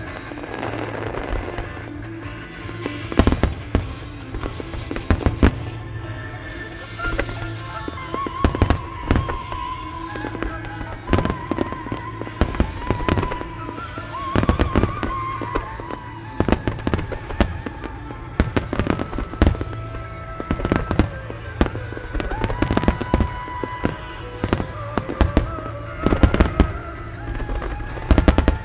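A starmine barrage of large aerial firework shells: sharp booms following each other rapidly, often several in quick clusters, with music playing underneath.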